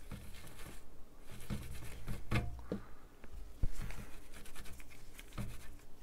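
A cloth wet with alcohol rubbed over a graphics card's circuit board to clean off corrosion. It makes a run of irregular, scratchy wiping strokes, with one sharper tap about halfway through.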